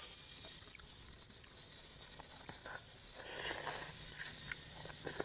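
Khanom jeen rice noodles slurped into the mouth in one short, airy slurp about three seconds in, with small wet clicks of close-up eating around it.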